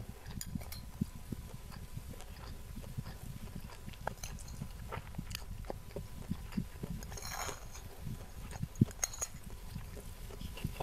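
Close-miked chewing and mouth sounds, with scattered small clicks of a metal spoon against a china plate while sambal is scooped off it. A short scrape comes about seven seconds in, and one sharper clink a little later.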